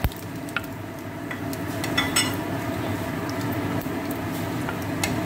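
Whole spices sizzling in hot oil in a kadai while being stirred, with a few sharp clinks of the spoon against the pan.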